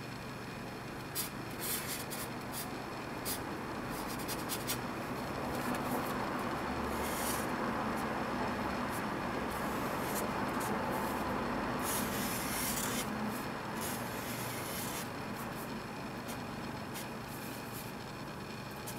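Felt-tip marker rubbing and scratching across paper in a series of drawn strokes, with short sharp ticks as the tip touches down.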